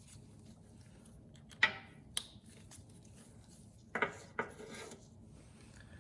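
Small metal tools or parts being handled: four sharp clicks and knocks, in two pairs about two seconds apart, with some rubbing after the second pair.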